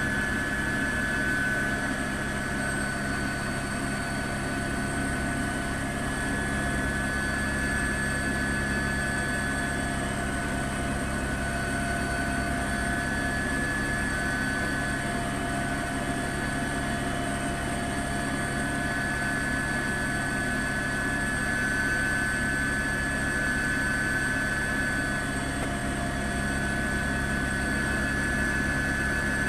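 Helicopter noise from aboard the aircraft: a steady drone with a constant high-pitched whine, unchanging throughout.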